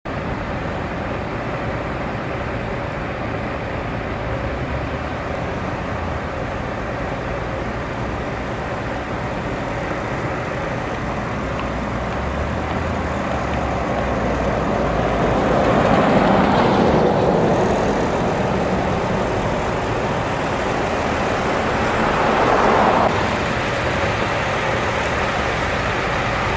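Steady road and traffic noise heard from a vehicle moving along a highway. The noise swells twice in the second half as vehicles pass; the second swell cuts off sharply.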